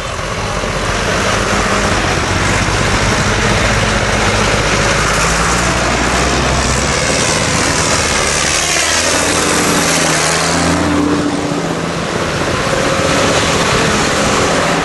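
Tractor engines running, several engine notes heard at once, with a brief sharp knock right at the start.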